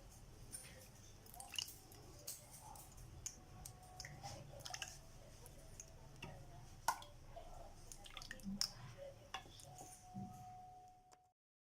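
Lemon-and-sugar syrup being strained: faint drips and squishing of the soaked peels, with scattered small clicks and taps of utensils. The sound cuts off abruptly near the end.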